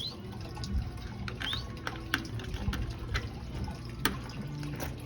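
Water trickling and dripping from the aviary's leaking water pump, with scattered small clicks and a couple of short, high rising chirps from small birds.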